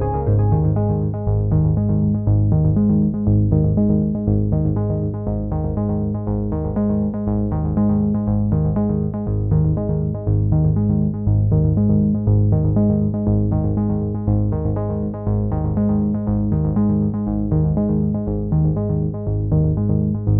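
Background music: a synthesizer and keyboard track with sustained low notes and a steady pulsing rhythm.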